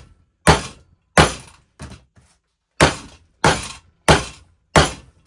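A 32-ounce ball-peen hammer pounding a glued PVC drain pipe fitting on a wooden workbench: six hard blows about two-thirds of a second apart, with a pause after the second. The PVC pipe is cracking and breaking apart around the glued joint, which holds.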